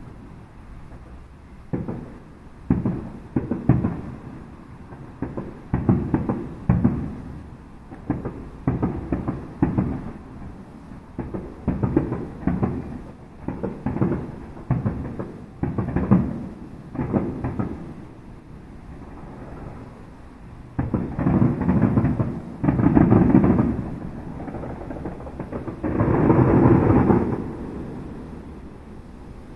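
Aerial fireworks shells bursting one after another, booms about a second or two apart. Later come two dense volleys of rapid bursts, the loudest part, before the sound dies away near the end.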